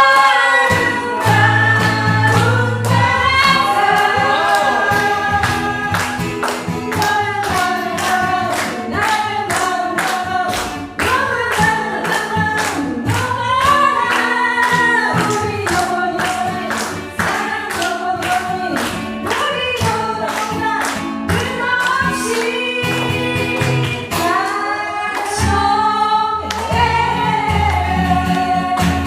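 Several voices singing together over a band accompaniment with a steady beat and bass line.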